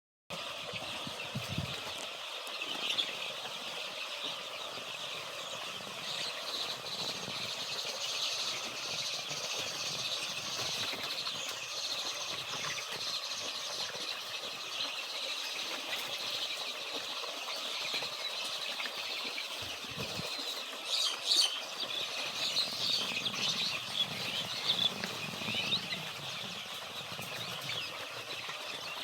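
A large flock of 15-day-old layer chicks peeping without pause, many high calls overlapping into a continuous chatter, with a few louder sharp notes about two-thirds of the way in.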